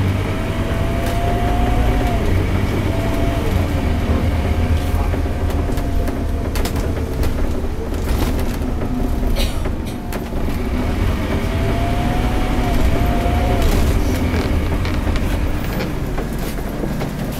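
Scania DC9 Euro 4 diesel engine and ZF Ecomat automatic gearbox of a Scania K230UB Omnilink bus, heard from inside the passenger saloon while on the move. A deep steady rumble runs throughout. Twice a faint whine climbs and then breaks off, as the gearbox changes up. A few sharp rattles sound through the body.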